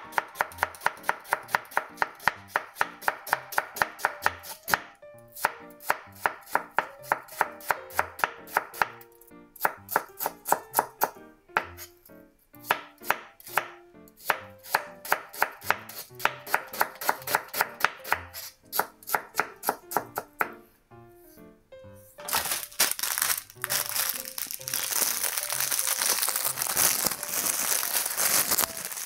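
Kitchen knife slicing myoga (Japanese ginger buds) on a bamboo cutting board: quick, even chops, about four a second, in runs with short pauses. About 22 seconds in, the chopping stops and a plastic bag of shiso leaves crinkles as it is handled.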